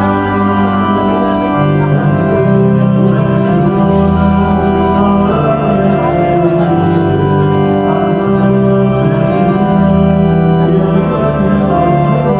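Electronic organ playing slow, sustained chords that change every second or two: liturgical music at Mass.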